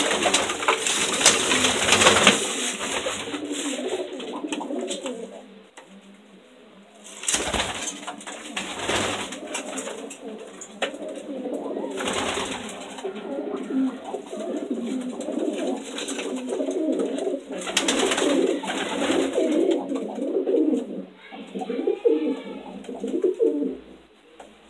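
Homing pigeons cooing together in their loft, a steady overlapping warble from many birds. A few short, loud rushes of noise break in, near the start and at a few points later.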